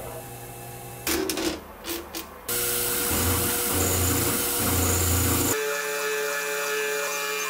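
Small CNC milling machine cutting aluminium: bursts of cutting noise, then a loud steady hiss for about three seconds, then a steady whine with several tones from the running spindle.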